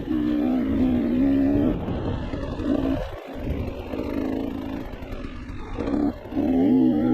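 Off-road motorcycle engine pulling steadily, then backing off the throttle about three seconds in and coming back on strongly near the end. The engine pitch is raised by 1.5× playback speed.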